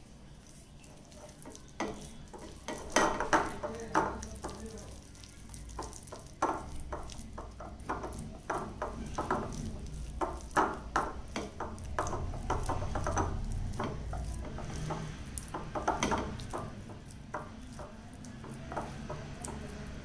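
A hand mixing a wet masala paste in a glass bowl: fingers squishing through the paste and scraping against the glass in short, irregular strokes.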